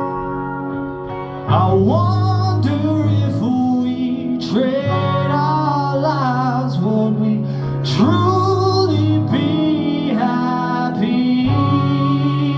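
Live band music: guitar with singing, over a heavy bass line that comes in about a second and a half in.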